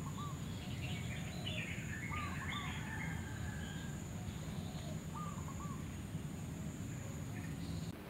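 Birds calling in a garden: a short two- or three-note call that repeats about every three seconds, with twittering chirps in the first few seconds. Under it is a steady high thin whine that stops just before the end.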